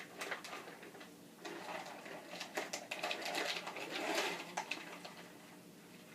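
Irregular light clicks and rustling of crunchy veggie straws being handled and put into a glass of water.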